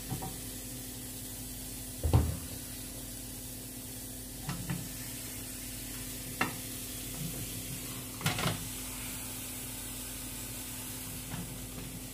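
Red bell pepper pieces being laid onto the hot ridged plate of a Tefal OptiGrill: a handful of light knocks and taps with brief sizzles, the loudest knock about two seconds in. Under it a refrigerator hums steadily.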